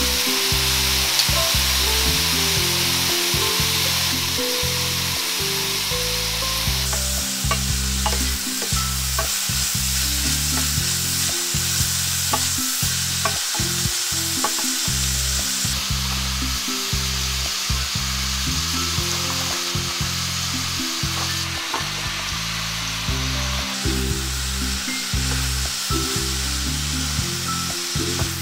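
Vegetables sizzling in a hot stainless steel pan as they are stir-fried, tossed with a wooden spatula and a wooden spoon. Occasional light clicks come from the utensils against the pan.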